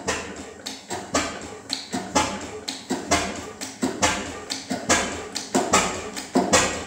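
National KB 13 bhp horizontal hot-bulb oil engine running slowly, a sharp knocking beat roughly once a second with lighter clicks of the valve gear between.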